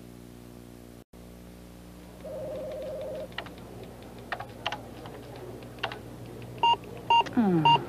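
Scattered keystrokes clacking on a computer keyboard, then three short loud computer beeps near the end, the sort a computer gives to reject input, with a falling tone under the last one. A one-second buzzing tone comes about two seconds in, over a steady low hum.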